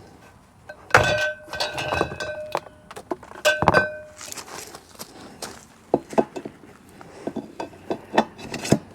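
Metal deer-feeder legs clanking together as they are handled. Two loud ringing clanks come about a second in and again about three and a half seconds in, followed by a run of lighter knocks and clicks.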